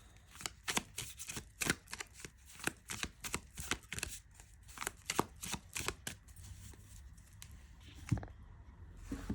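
A tarot deck being shuffled by hand: a quick run of sharp card clicks for about six seconds, then quieter handling and a single tap near the end.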